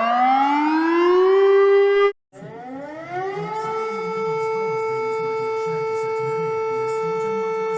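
Recorded warning sirens. One siren rises in pitch and cuts off abruptly about two seconds in. After a brief gap, another siren winds up over about a second and holds a steady tone.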